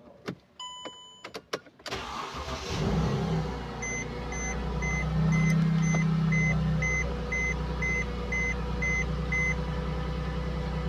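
A few clicks, then the 2010 Mercedes-Benz GLK's engine cranks and catches about two seconds in and keeps running, briefly higher before settling to idle. A dashboard warning chime beeps about twice a second for several seconds while it runs.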